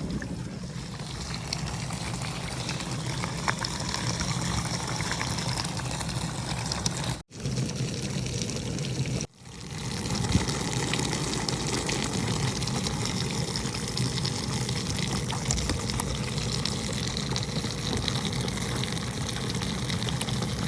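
LG LDF7774ST dishwasher running a wash cycle: water spraying and sloshing inside over the steady hum of the circulation pump. The sound cuts out briefly twice, about a third of the way in and again a little before halfway.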